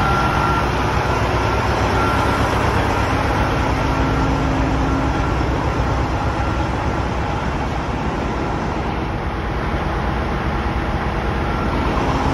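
Steady diesel engine noise of an idling semi truck, a dense even rumble with a faint steady whine over it.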